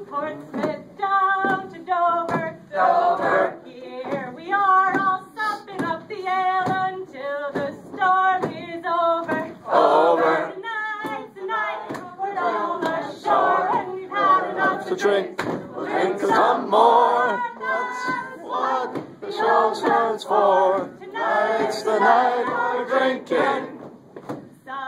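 A mixed group of men and women singing a sea chanty together without accompaniment, in short rhythmic phrases.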